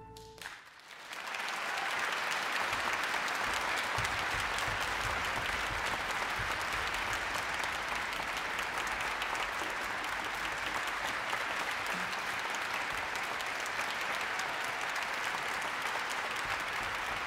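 The final note of the cello and string orchestra dies away, and about a second in a concert audience breaks into steady applause that carries on throughout.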